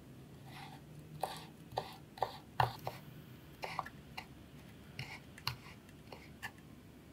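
Chef's knife slicing Italian parsley leaves into thin shreds on a wooden cutting board: about a dozen irregular taps of the blade meeting the board.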